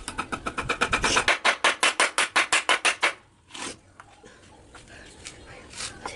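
Claw hammer tapping rapidly on a steel butt hinge, about ten light metal-on-metal strikes a second for some three seconds, then two single taps.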